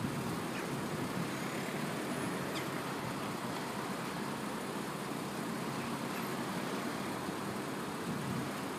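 Steady street background noise with traffic, an even hiss and rumble with no distinct events.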